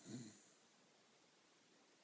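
Jack Russell terrier snoring in its sleep: one short, low snore right at the start, then faint breathing.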